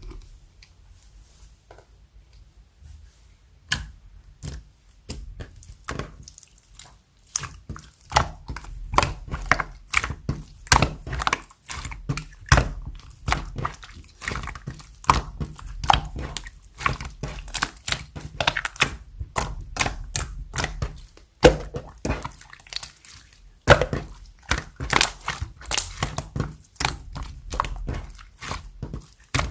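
Clear slime being worked by hand, making sharp pops and clicks: a few scattered ones at first, then a dense, irregular run of them from about eight seconds in.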